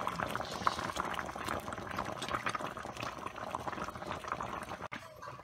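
Water at a rolling boil in a stainless steel pot of plantain pieces: a steady bubbling crackle of many small pops. It drops off abruptly and goes quieter near the end.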